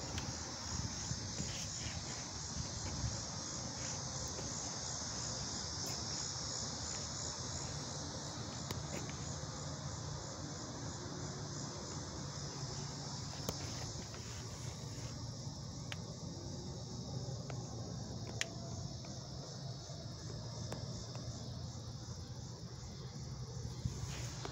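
Outdoor insect chorus: a steady, high-pitched buzzing that runs on without a break, with a low steady hum underneath and a few light clicks from handling.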